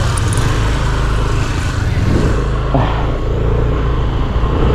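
Motorcycle riding along a road: its engine running under a steady, loud rush of wind on the microphone.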